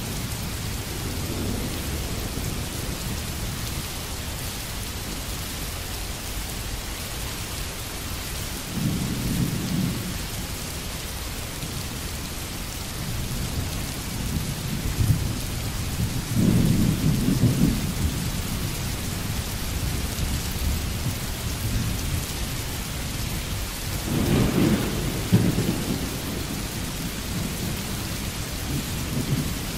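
Steady rain falling as an even hiss. Low rumbles swell up three times, about nine, sixteen and twenty-four seconds in, each lasting a second or two.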